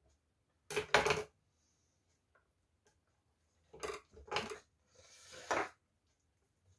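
Kitchen utensil clatter: a knife and other items knocked and set down on a plastic cutting board and countertop, a cluster of sharp knocks about a second in and more around four seconds in, followed by a short scraping rustle.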